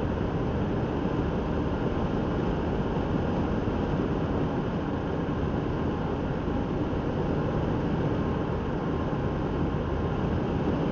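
A car's road and engine noise heard from inside the cabin while cruising, a steady low rumble that does not change.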